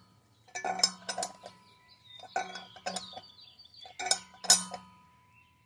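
A short ratchet clicking in three bursts of strokes with a metallic clink, turning the drawbolt of a wheel-bearing installer tool that draws a new wheel bearing into a motorcycle wheel hub.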